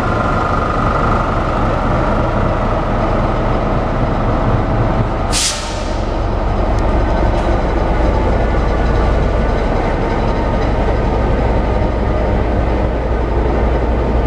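A diesel locomotive's engine runs with a steady low rumble as a passenger train rolls slowly past, with a sharp hiss of air from the brakes about five seconds in.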